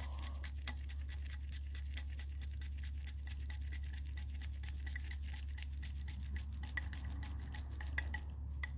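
Screwdriver turning an idle mixture screw, with its spring, into a Ford Motorcraft two-barrel carburetor body: a run of fine, irregular ticks and scrapes over a steady low hum.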